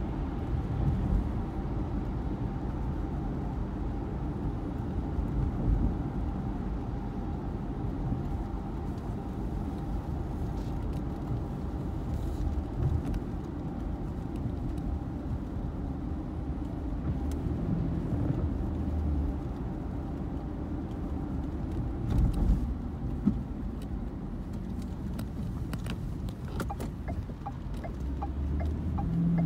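Steady low rumble of a car being driven, engine and tyres on a wet road, heard from inside the cabin. A few faint ticks come near the end.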